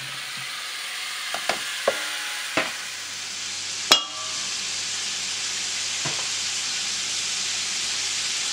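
Cut sausages tipped into a hot pot with a little water: a few knocks as they drop in, one sharp knock about four seconds in, then steady sizzling that grows slowly louder.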